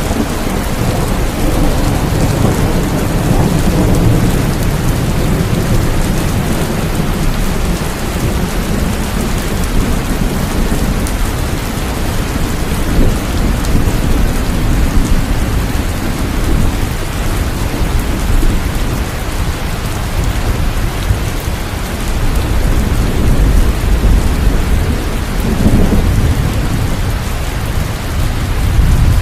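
Steady rain falling, with low rolling thunder rumbling underneath that swells a few seconds in and again near the end.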